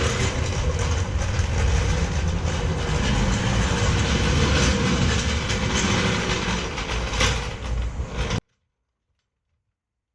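Loud, steady mechanical rumbling and rattling that cuts off suddenly about eight seconds in.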